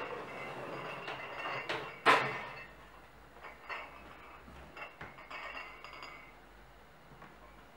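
Glass jars clinking and knocking on a metal baking tray as it is handled and set down, with one sharp, loud knock about two seconds in and lighter clinks after it.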